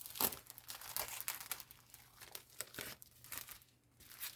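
Thin paper napkins rustling and crinkling as they are handled and leafed through, in irregular bursts of rustles.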